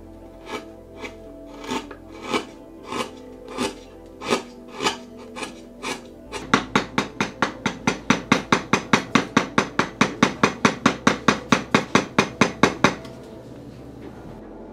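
Carving gouge slicing into white pine by hand: crisp cuts about every half second, then about six seconds in a quicker, even run of short cuts, about five a second, that stops shortly before the end.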